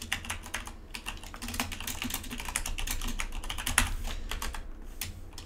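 Typing on a computer keyboard: a fast run of keystroke clicks that thins out to a few scattered keys near the end.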